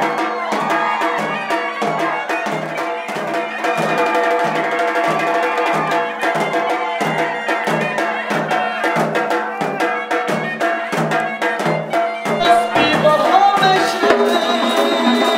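Uyghur folk dance music: a steady frame-drum-like beat about twice a second under a sustained melody on traditional instruments.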